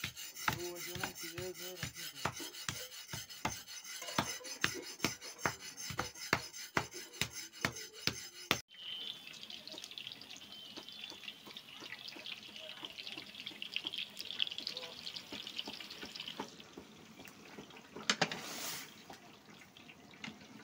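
Steady rhythmic pounding, about three knocks a second, as mutton for wazwan is beaten with a wooden mallet. After a sudden cut, large cauldrons simmer over a wood fire with a steady hiss, and there is a louder brief scrape of stirring near the end.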